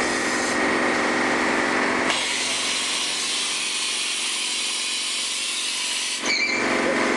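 1987 Takisawa MAC V2E vertical machining center running under power, its spindle head traveling down toward the workpiece: a steady machine hum and whine with a few held tones. The sound changes about two seconds in and a click comes about six seconds in.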